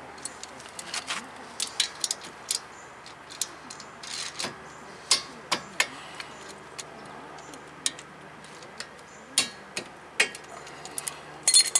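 Irregular sharp metallic clicks and clinks of a ratchet wrench working the 12 mm front brake caliper bolts loose, with a quick cluster of clicks near the end.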